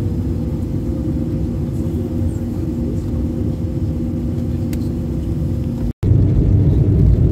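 Airliner engine noise heard inside the cabin: a steady hum with low rumble. About six seconds in it cuts out for an instant and comes back louder and deeper.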